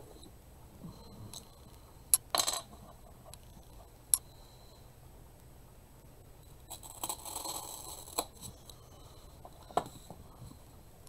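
Handling sounds of a block of floral foam and a small wooden crate on a cutting mat: a few sharp clicks and taps, and a rustling scrape about seven seconds in.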